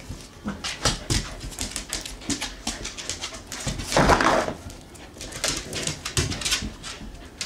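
Samoyed puppies play-fighting: small whimpering dog noises over quick scuffles and clicks of paws and claws on a tile floor, with a louder rough burst about four seconds in.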